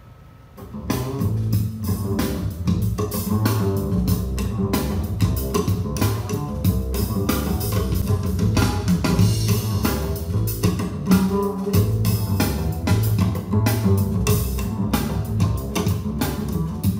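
Recorded music with a steady drum beat, bass and guitar, played from a laptop over USB through a Behringer Xenyx QX1222USB mixer and heard from its loudspeakers in the room; it starts about a second in.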